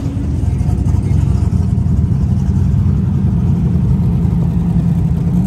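A car engine running steadily with a low rumble.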